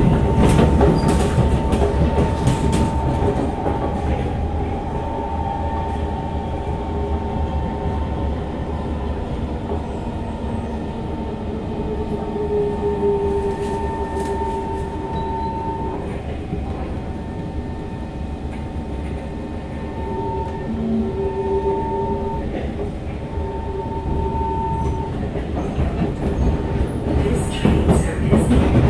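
Cabin noise of a moving SMRT C151 metro train: a continuous rumble of wheels on rail with a steady high whine that breaks off and returns in the second half. Sharp clacks over rail joints come in a cluster at the start and again near the end.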